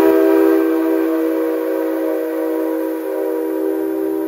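Whistle of the EF55 No. 1 electric locomotive, blown in one long, loud, steady blast that starts suddenly, with several pitches sounding together.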